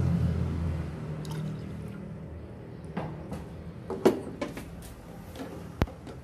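Background music fading out about a second in, then a few faint drips and sharp light clicks.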